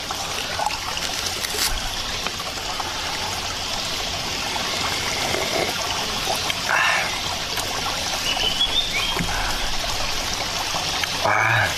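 Small mountain stream trickling steadily over rocks.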